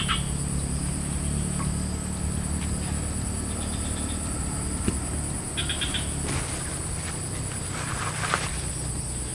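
Swamp frogs calling in short, rapid pulsed croaks, three times, over a steady high-pitched insect drone.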